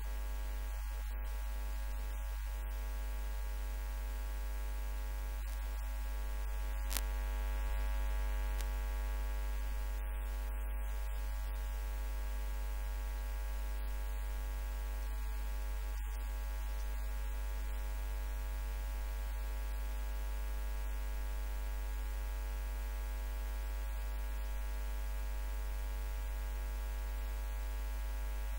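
Steady electrical mains hum with a dense stack of overtones, with no speech over it; a single sharp click about seven seconds in.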